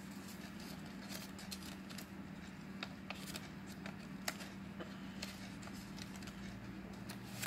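Sheet of origami paper being handled and folded by hand: soft rustling with scattered crisp crinkles and clicks.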